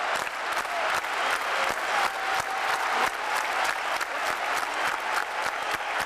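Large stadium crowd applauding steadily, many claps blending together.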